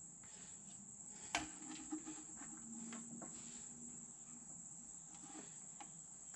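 Crickets chirring steadily in a high, even drone, with a few faint clicks and taps from hands handling the muffler support bracket, the sharpest about a second and a half in.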